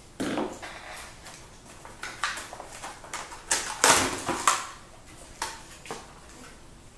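A knife and its cardboard packaging being handled on a table: scattered clicks, knocks and rustling, loudest about four seconds in.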